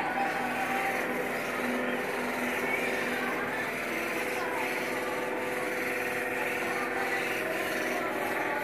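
Air spray gun hissing steadily as it sprays paint, over a steady low hum.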